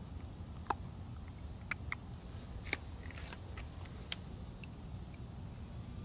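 Low steady rumble with about seven small sharp clicks and taps scattered over the first four seconds, the first one the loudest.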